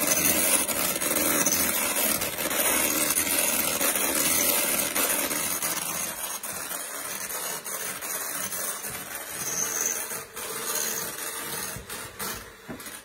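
KitchenAid electric hand mixer running steadily, its beaters working softened cream cheese and butter for icing in a glass bowl. The whir grows somewhat quieter in the second half and stops near the end.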